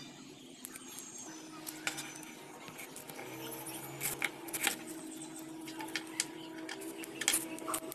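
Steel scissors snipping through a rubber balloon: a handful of sharp cutting clicks from about four seconds in to near the end, with handling rustle earlier, over a faint steady hum.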